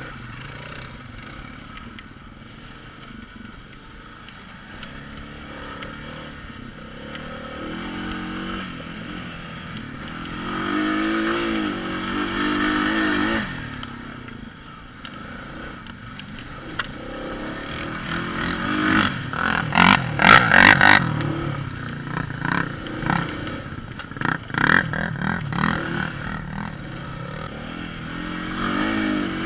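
Honda ATV engine running as the quad is ridden, revving up about ten seconds in and easing off a few seconds later. Bursts of loud clattering knocks follow, the loudest about twenty seconds in, with more near twenty-five seconds.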